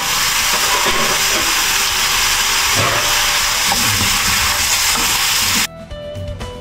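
Stir-frying vegetables sizzling in a hot wok as freshly added zucchini is stirred in, a steady hiss. The sizzle cuts off suddenly near the end, leaving soft background music.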